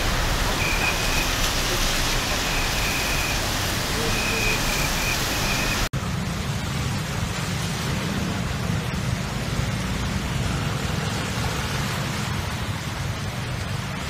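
Steady hiss of traffic and water on a flooded, rain-wet road, with a thin high tone sounding on and off. After a sudden cut about six seconds in, a lower rumbling noise follows as cars move through floodwater.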